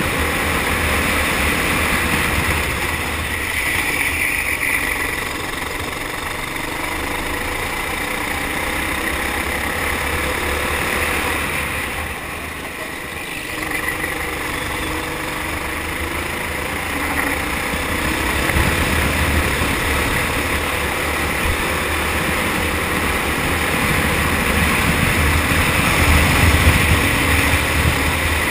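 Four-stroke kart engine running at speed under the driver. It drops off briefly about halfway through, then picks up again and grows louder toward the end.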